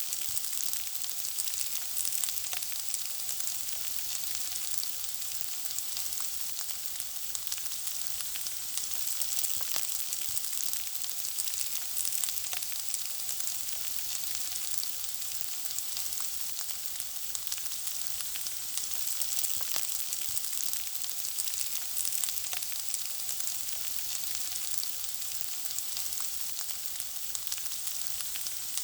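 Food frying in a pan: a steady sizzle, thick with small crackling pops, mostly high in pitch.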